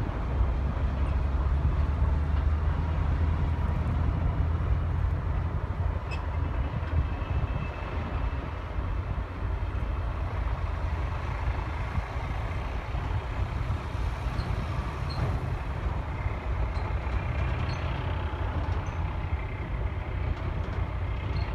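Diesel engines running: a shunting locomotive pulling away, with quarry trucks moving. The deep engine rumble is strongest for about the first eight seconds, then falls back to a steadier, lower mix of engine noise.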